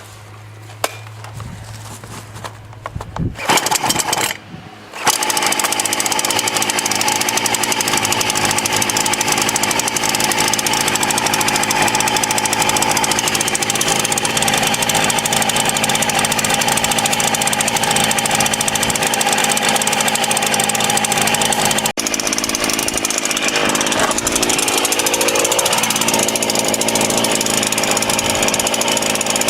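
Titan TTL759CHN two-stroke petrol chainsaw starting: a brief burst of firing, then it catches about five seconds in and runs loud and steady at high revs. Near the end the engine note sweeps up as it revs again.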